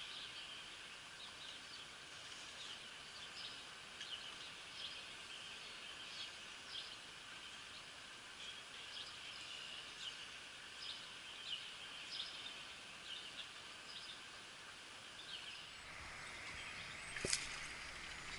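Faint steady hiss of flowing river water with scattered short bird chirps. Near the end, louder rustling handling noise and one sharp knock as the camera is moved.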